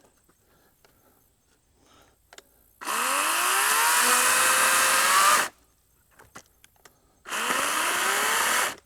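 Wild Badger CSB40U 40-volt battery chainsaw run in two bursts, the first about two and a half seconds long and the second about a second and a half. Each time its electric motor whine rises in pitch as the chain spins up. A few faint clicks come before the first burst.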